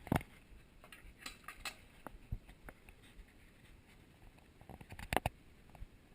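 A Belgian Malinois eating from its food bowl: irregular clicks and knocks of kibble and bowl, with a louder cluster about five seconds in.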